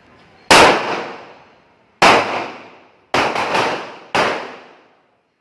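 Pistol shots fired on a range at uneven spacing: one about half a second in, one at two seconds, a quick cluster just after three seconds, and one more past four seconds. Each crack is loud and tails off in a long echo.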